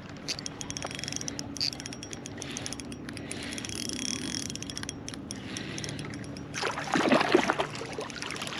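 A fishing reel being wound in steadily with a light mechanical whir and clicks as a hooked bass is brought to the kayak. About two-thirds through comes a louder stretch of irregular splashing and thrashing as the fish is landed.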